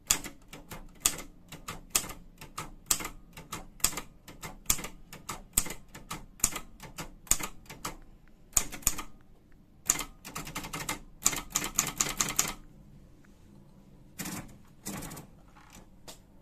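Imperial Mercury manual typewriter being typed on: sharp key strikes at an uneven pace, a dense fast run of strokes about ten seconds in, then a pause and a few more strokes near the end.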